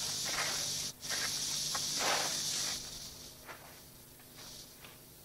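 Steady hiss of an old camcorder tape recording, with a few brief scuffs and rustles of a kung fu practitioner's feet and clothes as he moves through a form. The hiss drops out for a moment about a second in and grows quieter after about three seconds.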